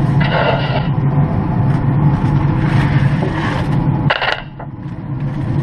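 Aluminium foil crinkling and scraping over the metal grates of a Traeger pellet grill as a foil-wrapped meatloaf is slid in, with a short sharp clatter about four seconds in. A steady low drone runs underneath.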